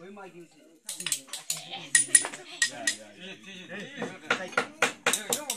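Hammer striking a screwdriver against metal parts of a Maruti 800 engine during teardown: a series of sharp, ringing metallic taps and clinks, often several a second, as a part is knocked loose.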